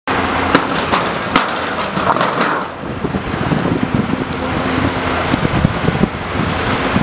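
Hydraulic excavator with a demolition sorting grapple tearing corrugated sheet-metal cladding off a building: the engine hums steadily under scraping and clattering metal, with several sharp clanks in the first second or so.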